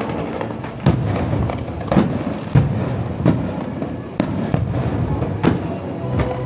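Aerial fireworks shells bursting in a show: sharp bangs about once a second, with crackling between them.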